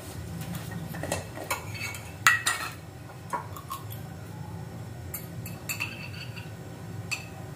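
Metal spoons clinking and scraping against ceramic plates during a meal, in scattered separate clinks, the loudest a few at a time about two seconds in.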